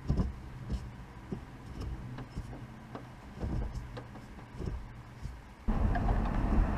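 A few light knocks and handling noises over a low hum, then, about a second before the end, an abrupt cut to steady road and engine noise inside a moving 2013 Mustang V6.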